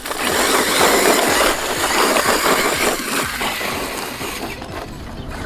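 ZD Racing BX-8E RC buggy being driven hard over loose dirt and gravel, its tyres churning the ground under a faint high motor whine. It is loudest over the first three seconds and then fades.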